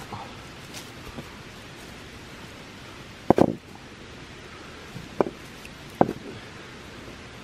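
Dull knocks of rocks and a log round being handled and set down for a fire ring, with a loud double knock about three seconds in and two shorter knocks near the end, over a steady hiss.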